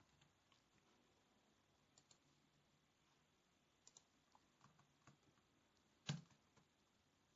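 Faint computer keyboard typing and clicks: a few scattered keystrokes, with one louder click about six seconds in.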